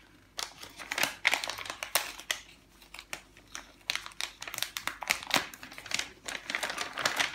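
Paper envelope rustling and crinkling as hands turn it over and open its flap, in a run of irregular short rustles.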